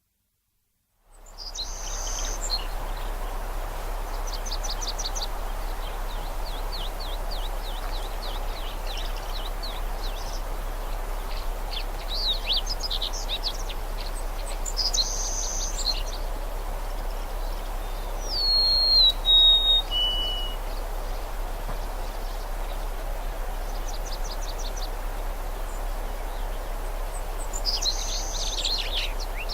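Songbirds chirping and trilling over a steady rushing background noise, part of a coastal nature soundscape. About two-thirds of the way through, a clear whistled call steps down in pitch over three notes; it is the loudest sound here. The first second is silent.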